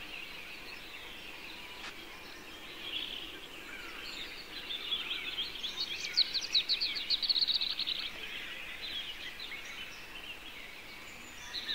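Wild birds singing in rapid high trills and chirps over a steady outdoor hiss, busiest from about five to eight seconds in.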